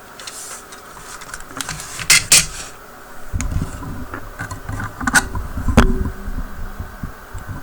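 Handling noise: sharp clicks and knocks with low rumbling as the workbench soldering jig and the things around it are picked up and moved about.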